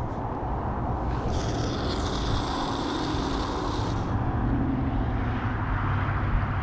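A baitcasting reel being cranked to wind in line, with a whirring from about a second in until about four seconds in. Under it runs a steady low rumble, which is the loudest sound.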